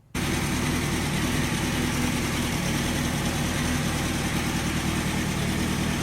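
Kawasaki ZX-6R motorcycle's inline-four engine idling steadily.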